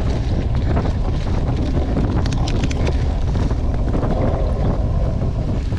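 Wind noise buffeting the microphone of a racing bicycle moving at speed, a steady heavy rumble with a few faint clicks about two seconds in.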